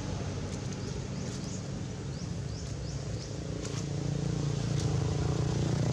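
A steady low engine hum, with runs of short high chirps that rise in pitch, several a second, during the first half.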